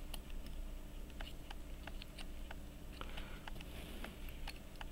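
Faint, irregular small metallic clicks and taps, about two or three a second, as a watchmaker's screwdriver and fingers work a snug plate screw on a pocket-watch movement set in its metal holder, over a faint steady hum.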